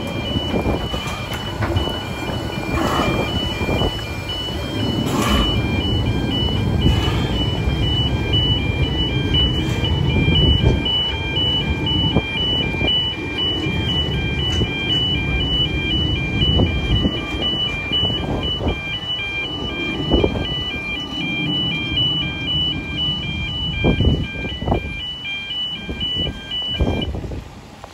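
Narrow-gauge steam locomotive Russell, a Hunslet 2-6-2 tank engine, pulling away with its train, with steam noise and running noise throughout. Over it a road-crossing warning alarm beeps steadily at about two beeps a second and stops near the end.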